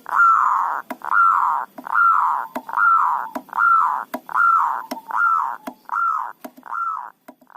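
Zebra dove (perkutut) singing its cooing song: a string of about ten loud, even coo notes, roughly one every three-quarters of a second, growing shorter toward the end, with sharp clicks between the notes.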